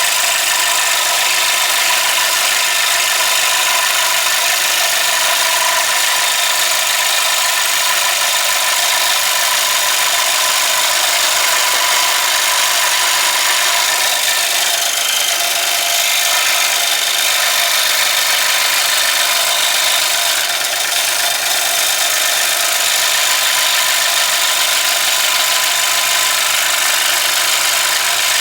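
Power saw running steadily while cutting out a push stick from 1/4-inch MDF.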